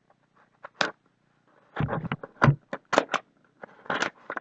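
A cardboard shipping box being opened and handled: a couple of light clicks, then, from about two seconds in, a quick run of sharp knocks, scrapes and rustles.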